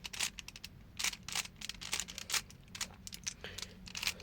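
Rubik's cube being turned by hand, its plastic layers giving irregular quick clicks and clacks, some in fast runs of several turns.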